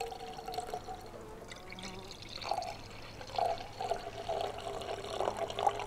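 Red wine poured from a bottle into a wine glass, an uneven gurgling and splashing that comes in several spurts in the second half, over a faint steady low hum.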